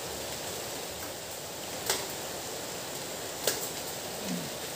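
Steady hiss of water, cut by two sharp clicks about a second and a half apart, the first about two seconds in, and a brief low voice sound near the end.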